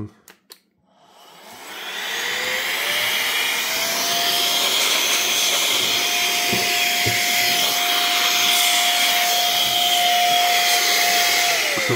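Rechargeable electric air duster (a 100,000 RPM mini blower) spinning up with a rising whine about a second in, then running steadily with a high motor whine and rushing air, and winding down to a stop near the end. A few clicks just before it starts and a couple of light knocks midway.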